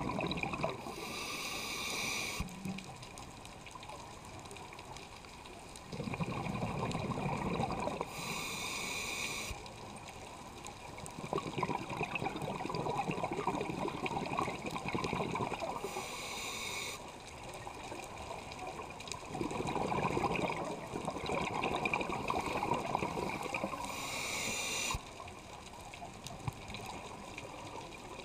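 Scuba regulator breathing of the diver carrying the camera: four short hissing inhalations, about seven to eight seconds apart, each followed by a few seconds of exhaled bubbles gurgling past.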